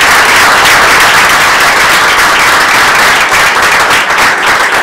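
A small group applauding steadily with their hands, close by, starting to thin out near the end.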